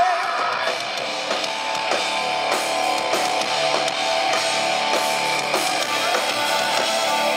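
Live hardcore band playing loud: distorted electric guitar over a drum kit.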